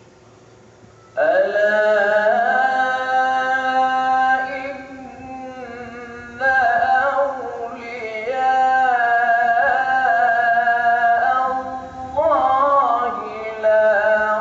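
A man reciting the Quran in the melodic chanted style of tilawat: long held notes with ornamented runs of pitch, starting about a second in, with brief breaks for breath between phrases.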